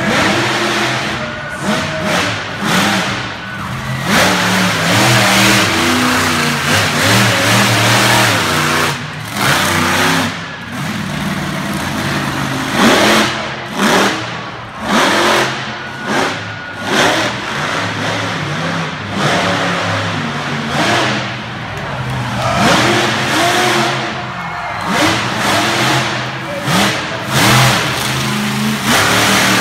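Monster truck engine revving hard in repeated bursts, its pitch climbing and falling as the truck drives and jumps. The surges come thick and fast in the middle.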